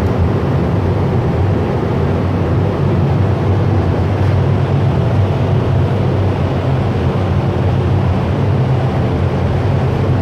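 Steady, loud machine drone with a low hum, unchanging throughout.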